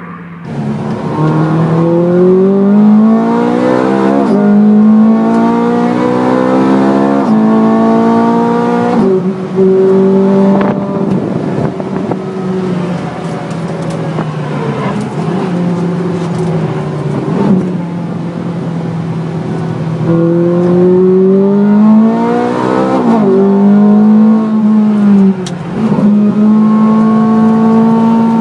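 Ferrari F430 Scuderia's 4.3-litre V8 accelerating hard on a race track, heard from inside the cabin. The revs climb and drop back through several quick upshifts, ease to a steadier note for a while, then rise again and fall away on downshifts near the end.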